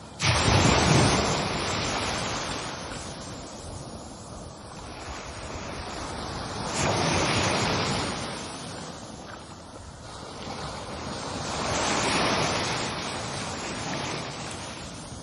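Ocean waves breaking and washing in: three surges of surf, the first coming in suddenly and loudest, then two more about five seconds apart, each swelling and then fading.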